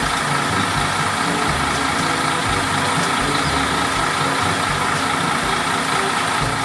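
Concrete mixer truck's diesel engine running steadily while its drum turns.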